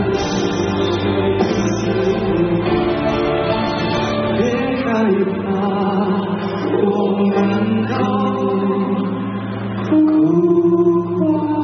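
Live pop duet: male voices singing into microphones over a band accompaniment through an arena sound system, a little louder from about ten seconds in.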